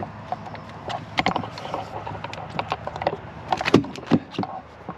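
Irregular clicks, knocks and rubbing from a camera being handled against the RV's sidewall and a telescoping aluminium ladder being gripped and climbed down, over a faint steady low hum.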